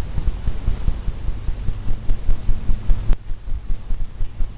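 Bristle paintbrush dabbing and tapping at the canvas or palette: irregular dull thuds several times a second, over a low steady hum.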